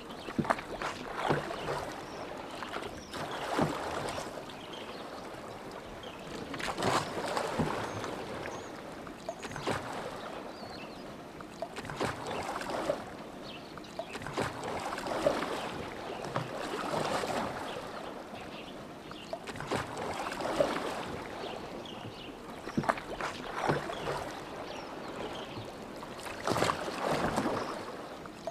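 Oars of a rowboat dipping and pulling through lake water, a splash and swirl swelling up with each stroke about every three seconds, with a few sharp knocks.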